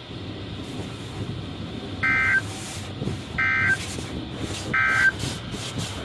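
Midland NOAA weather radio's speaker sounding the Emergency Alert System end-of-message signal: three short, identical, warbling data bursts about a second and a half apart, over a steady hiss. The bursts mark the end of the severe thunderstorm warning broadcast.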